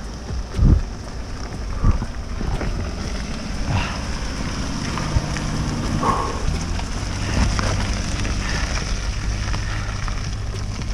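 An SUV engine runs steadily under load on a steep, rocky trail climb, with steady rain hiss over it. Two short knocks come in the first two seconds.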